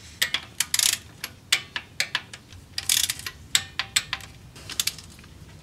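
A torque wrench ratcheting in short runs of sharp clicks as it tightens transmission oil pan bolts to about 96 inch-pounds.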